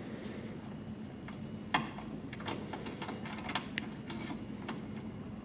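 A few scattered light clicks and taps as a bolt is handled in a socket and set against its threaded hole in a car door, over a faint steady hum.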